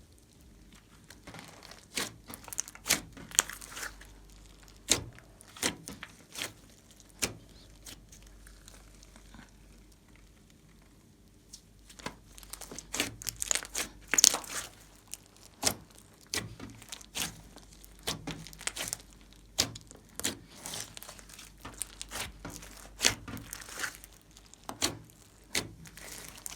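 Slime being squeezed, stretched and poked by hand: irregular crackling and sticky popping clicks, sparse for a few seconds in the middle and then denser again.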